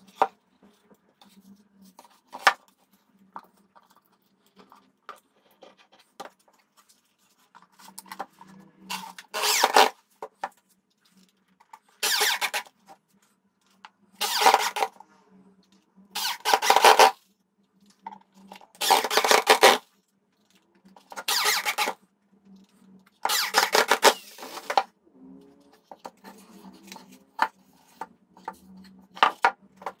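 A hand-held power tool run in short bursts, about one every two seconds, starting about a third of the way in, with a faint steady hum and a few light clicks between bursts.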